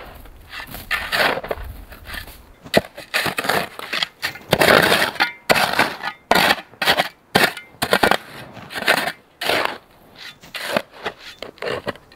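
Metal shovel digging and scraping through packed snow, crunching in irregular strokes, with one longer scrape about four and a half seconds in.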